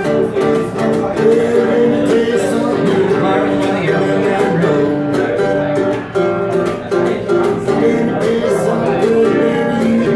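Live acoustic instrumental music: a mandolin and a small box-bodied guitar picking a quick, busy tune together.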